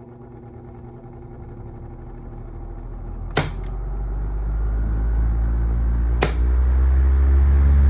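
Galaxy 2150 running with a steady hum that grows louder and deeper as it goes, broken by sharp clicks about three and six seconds in: the rattling noise for which it needs repair.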